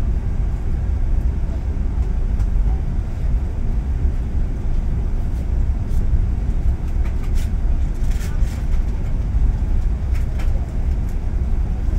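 Steady low rumble of an Airbus A380, heard from inside its main-deck cabin. A few brief clicks or rattles come in the second half.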